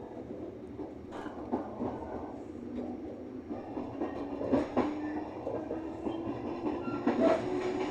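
Kintetsu 6020-series electric train running on the track, with a motor hum that rises in pitch as it gathers speed and the wheels knocking over rail joints every second or so.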